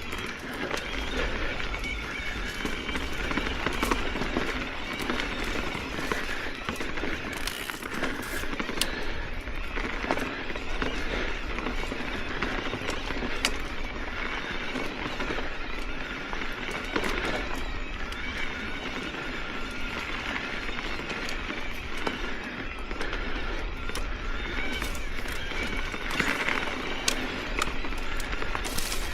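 Mountain bike tyres rolling over a rough dirt and gravel trail, with a steady crunching rush broken by many small clicks and rattles from stones and the bike's frame.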